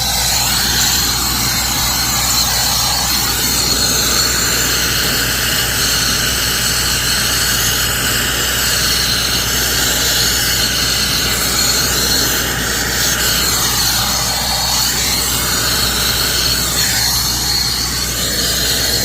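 Plumber's gas torch burning with a steady, loud rush of flame, heating a 3-inch copper sweat joint for soldering.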